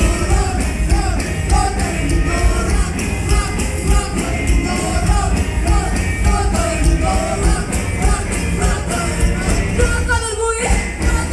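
Live band playing rock and roll with a woman singing: upright bass, acoustic and electric guitars and drums over a steady fast beat. The music thins briefly about ten seconds in, then carries on.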